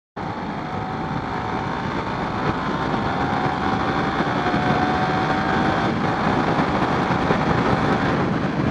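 Motorcycle being ridden at road speed: steady wind noise rumbling over the microphone, with a faint engine whine that climbs slowly in pitch.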